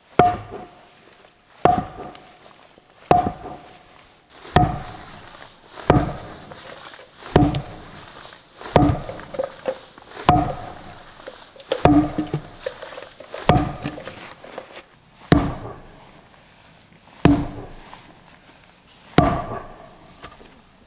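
Heavy blows struck on wood in a slow, steady rhythm, about one every one and a half seconds and a little slower near the end, each knock followed by a brief ringing note.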